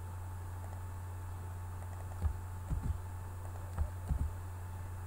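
A few soft clicks of computer keys, in small clusters about two to four seconds in, over a steady low electrical hum.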